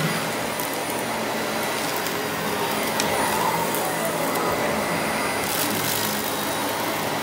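Vacuum cleaner running steadily, with a few short clicks about three seconds in and again near the end.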